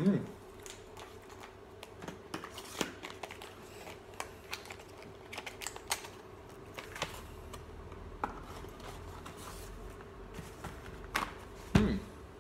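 Hands opening a small cardboard box of e-liquid bottles: scattered light clicks, taps and rustles of card and plastic.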